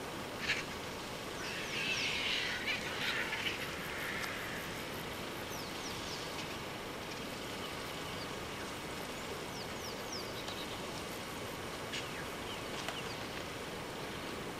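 Vultures squabbling at a carcass: a burst of harsh hissing and scuffling about two seconds in, lasting a couple of seconds. Short high chirps falling in pitch come now and then over a steady outdoor background hiss.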